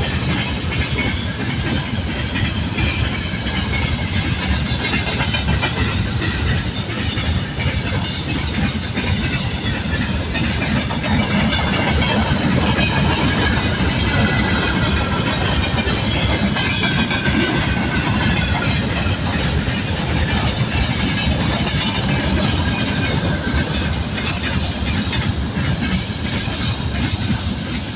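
Freight train of open-top gondola wagons rolling past close by: a steady rumble of steel wheels with rhythmic clicking over the rail joints, and faint high squealing tones above it.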